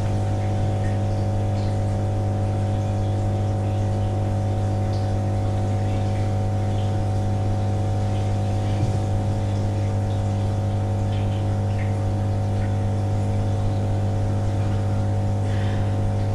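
Steady low machine hum with a set of higher steady tones above it, unchanging throughout, with faint light ticks and taps scattered over it.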